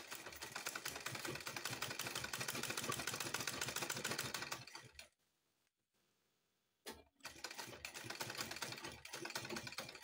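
Manual black-head sewing machine stitching: a rapid, even clatter of the needle and mechanism as it top-stitches fabric beside a zipper. The clatter stops about halfway for roughly two seconds, then a click and the stitching starts again.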